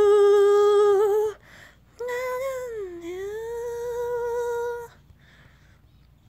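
A solo voice singing unaccompanied: a long held note that stops about a second in, a short breath, then a second held note that dips in pitch and comes back up before stopping about five seconds in.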